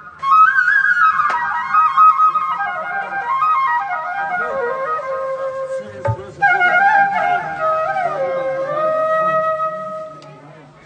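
Flute playing a stepwise melody in two phrases, with a short break about six seconds in; the tune fades away near the end. A low steady hum runs beneath it.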